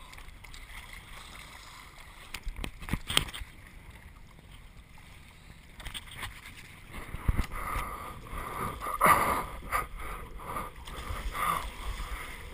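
Sea water sloshing and slapping against a surfboard, heard through a GoPro camera mounted on the board, with sharper splashes coming more often in the second half.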